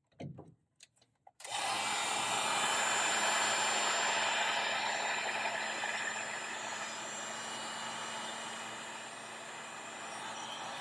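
A few short clicks, then the CD3 system's vacuum motor switches on suddenly and runs with a steady whooshing noise and a low hum: it runs normally now that the tank's float switch is bypassed.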